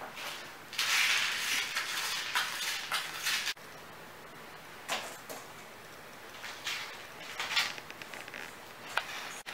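A kitten crunching dry kibble and knocking against its food dish for about three seconds, stopping abruptly. Then scattered soft rustles and light taps.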